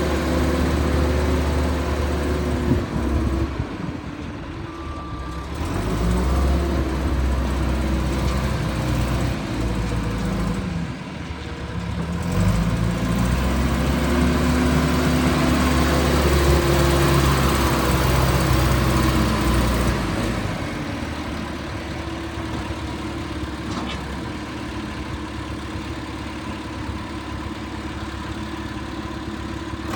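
John Deere 410E backhoe's diesel engine running, its speed dropping and picking up again a couple of times, then settling to a lower, steady run for the last third.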